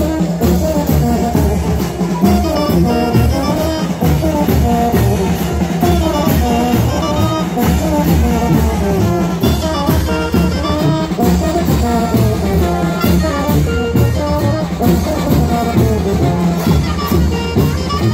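Live brass band playing chinelo dance music: drums keep a steady, driving beat under a melody.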